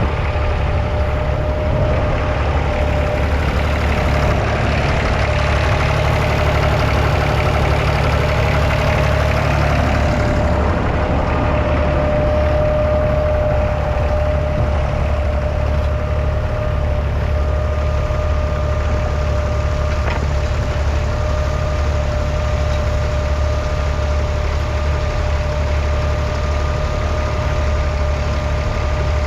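Massey Ferguson 35X tractor's 2.5-litre three-cylinder diesel engine running steadily, with a steady whine alongside the low engine note.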